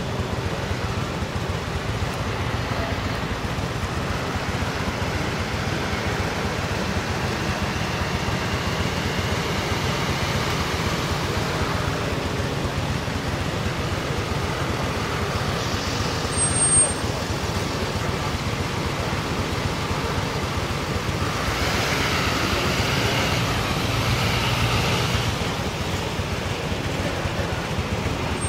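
A steady low engine hum, with faint voices in the background partway through.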